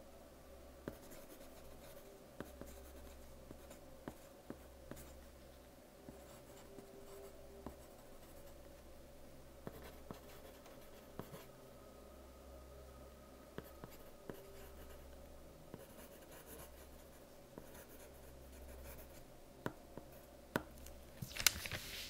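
Soft-lead pencil writing on paper: faint, irregular scratching with small ticks as the strokes are made, over a faint steady hum. A louder, brief scratch comes about a second before the end.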